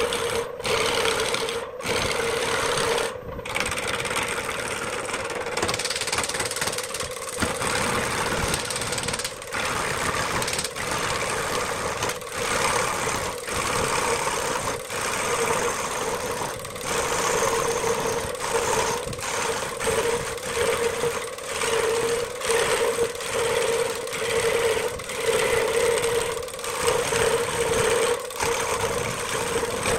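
Electric wood lathe spinning a wooden blank while a hand-held turning tool cuts into it: a steady motor hum under a scraping cutting noise that swells and dips as the tool is pushed in and eased off.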